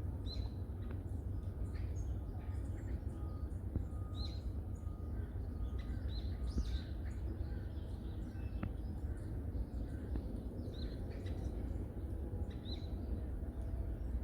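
Small birds chirping and calling in a forest: short, high chirps every second or two, with a steady low rumble underneath.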